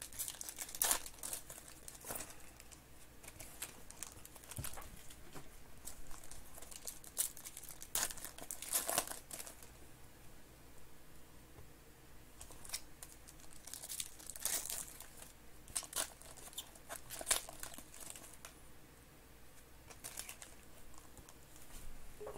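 Foil trading-card pack wrappers crinkling and tearing as Panini Certified Football packs are ripped open by hand, in irregular short bursts of crackle.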